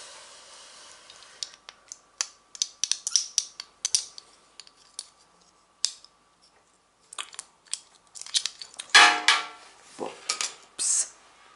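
Two metal pin-back button badges handled close to the microphone: a run of small sharp clicks and taps as they are turned and knocked together in the fingers, with a short pause in the middle. About nine seconds in comes a louder scraping rustle.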